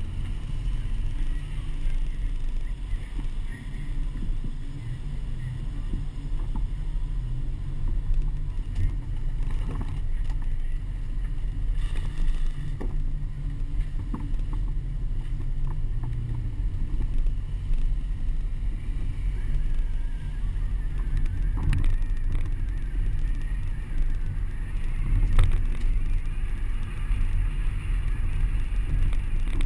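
Car driving slowly on a mud-covered street, heard from a camera mounted on the outside of the car: a steady low rumble of engine, tyres and wind on the camera, with a few faint knocks.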